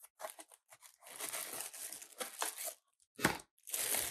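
Packaging being opened by hand: a small cardboard box torn and rustled open and a clear plastic bag crinkling, in a run of short scratchy bursts with a sharp crackle about three seconds in.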